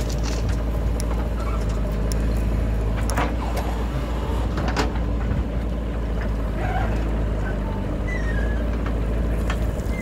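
JCB backhoe loader's diesel engine running steadily under load while the backhoe arm swings and digs into soil, with a couple of sharp knocks about three and five seconds in.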